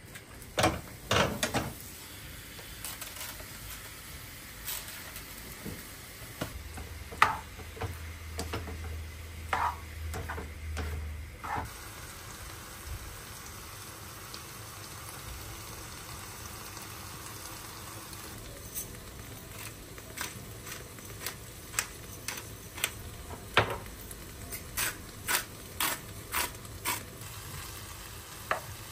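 Kitchen cooking sounds: scattered sharp clicks and knocks of utensils and cookware over a faint, steady sizzle. A low hum comes in about six seconds in and stops about five seconds later.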